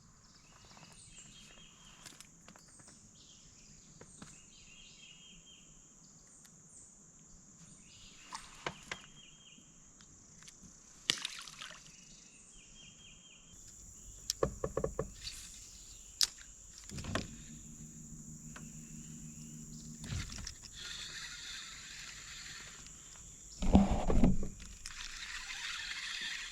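Outdoor lake ambience from a small fishing boat: a steady high insect drone, short repeated bird chirps, scattered knocks and water sloshing against the hull, with a loud thump near the end.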